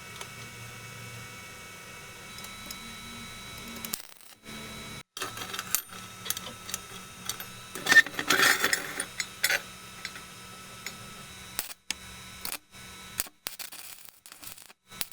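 Metal pieces clinking and knocking during workshop handwork, over a faint steady hum. The loudest clatter comes about eight seconds in.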